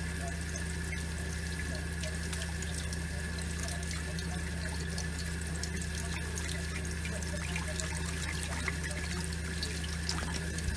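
Kitchen tap running in a steady stream onto cupped hands and into a stainless steel sink, with small splashes and drips as a budgerigar bathes under the water. A steady low hum sits underneath.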